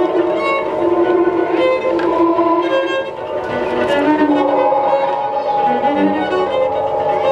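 Freely improvised music for cello, shamisen and real-time electronics: steady held tones run throughout under shifting bowed notes.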